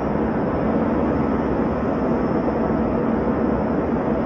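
Steady jet airliner cabin noise: the even rush of the engines and airflow heard from inside the cabin, with no distinct events.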